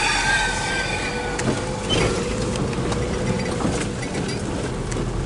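Car driving along a rough forest road, its tyres and body rumbling steadily. A high squeal sounds over the first second and a half.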